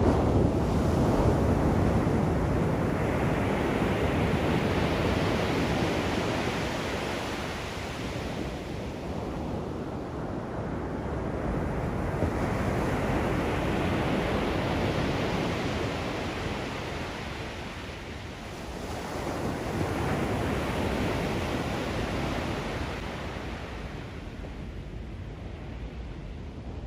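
Ocean surf: waves breaking and washing up the beach. The noise swells and falls away in slow surges, loudest near the start, again in the middle and once more near the end.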